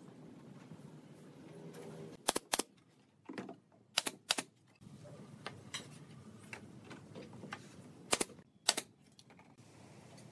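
Sharp wooden clicks and knocks from pine boards being handled and set against a wooden frame on a workbench. They come mostly in pairs, about two seconds in, four seconds in and near eight seconds, with lighter ticks between.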